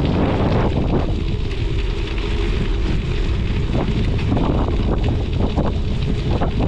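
Strong wind buffeting the microphone over the steady hum of a studded bicycle tyre rolling on clear lake ice, with a few short clicks in the second half.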